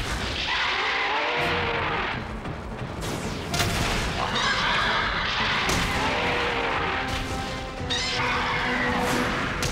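Giant-monster fight sound effects: creature cries and several heavy crashing impacts as the kaiju grapple, over background music.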